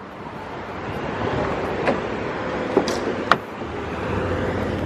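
A motor vehicle running, growing louder over the first second or so and then holding steady with a faint hum, with a few sharp clicks in the middle.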